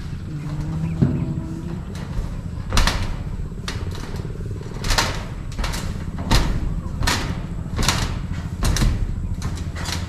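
Footsteps on long-span metal roofing sheets, each step a sharp popping crackle of the flexing sheet, about one every three-quarters of a second from about three seconds in. A steady low hum runs underneath.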